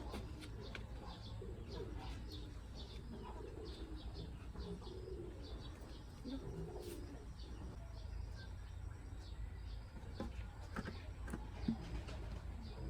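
Faint cooing bird calls, repeated every second or two, with scattered light ticks and a steady low hum underneath.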